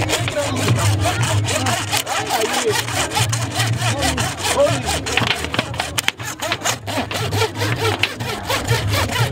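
A hand saw cutting through the bones of a butchered animal's ribcage and backbone in quick, steady back-and-forth strokes.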